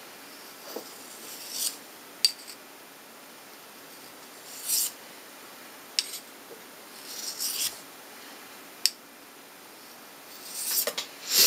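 A Mora Bushcraft knife's steel blade stroked across the diamond side of a Fallkniven DC4 pocket sharpener: several short, hissy scraping swipes a few seconds apart, with sharp ticks in between as the blade touches the plate.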